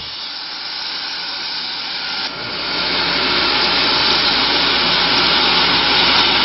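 Soaked dried mussels sizzling in a hot pan as liquid seasoning is poured over them for braising: a steady hiss that gets louder about two seconds in.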